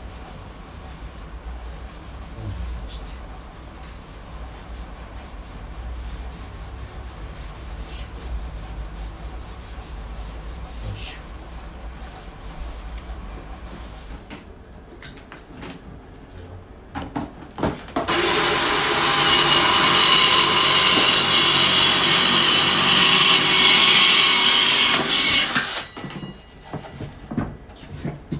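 Gloved hands rubbing stain into wooden boards with a rag, a soft steady rubbing. About two-thirds of the way in, after a couple of short bursts, a cordless circular saw runs loudly and steadily through a board for about seven seconds, then stops.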